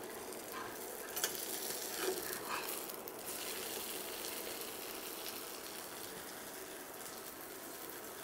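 Green pea cheela sizzling in oil in a nonstick frying pan. It is flipped with a metal spatula, which gives a few short scrapes and taps between about one and three seconds in.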